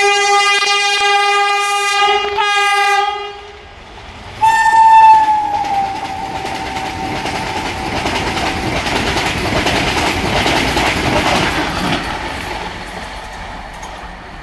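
A Vande Bharat Express train's horn sounds a long steady blast, briefly broken once. After a short gap a second horn blast starts about four seconds in and slides down in pitch. It gives way to the rushing and wheel clatter of a fast train going by, which fades near the end.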